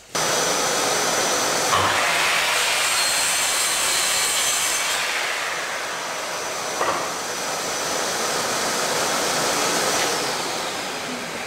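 Electric sliding mitre saw cutting across a wooden board, with its dust extractor running steadily alongside. The blade's cut is brightest from about two to five seconds in.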